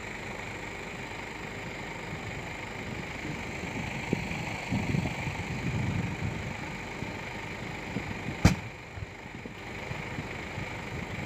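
A steady rumble of engine and fire noise, with one sharp, loud bang about eight and a half seconds in: a pop from the burning LPG-fitted car.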